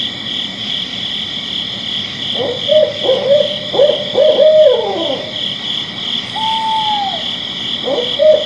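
A night animal hooting in a quick series of short notes that starts a couple of seconds in, then one longer arched call, then the hooting series again near the end. Underneath runs a steady, pulsing high chirring of night insects.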